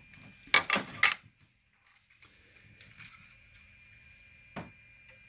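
Plastic SD-card adapter and its ribbon cable being handled and pushed into a 3D printer's card slot. A quick cluster of loud clicks and scrapes comes about half a second in, then faint rustling and one sharp click near the end.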